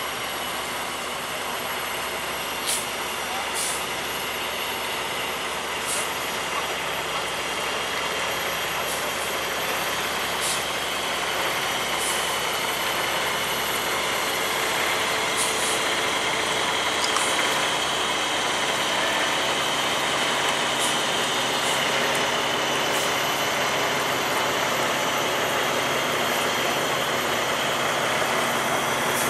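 Heavy truck engine running steadily as it moves a loaded boat trailer down a launch ramp, growing slowly louder, with a few faint ticks.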